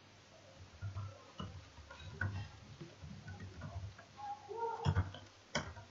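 Slow, scattered keystrokes on a computer keyboard, faint, with a couple of sharper clicks near the end.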